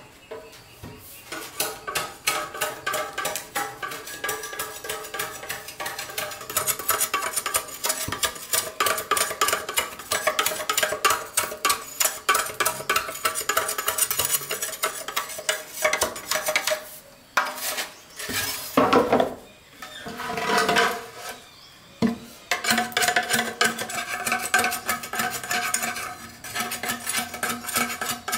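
Rapid, continuous clinking and scraping strokes of a hard hand tool against a hard object, several strokes a second. There are brief pauses around the middle, and steady ringing tones sound under the strokes near the end.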